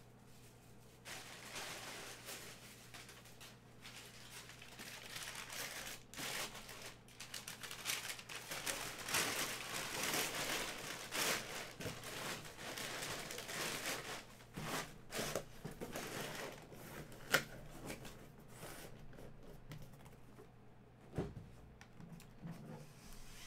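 Brown kraft packing paper crumpling and rustling as hands dig through it inside a cardboard box, in uneven bursts, busiest in the middle and thinning out near the end, with a few sharp ticks.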